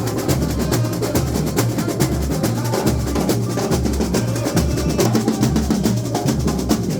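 Samba school bateria playing a samba: surdo bass drums keep a steady beat, about one stroke every 0.8 s, under a dense, fast patter of snare drums (caixas) and small high-pitched strokes.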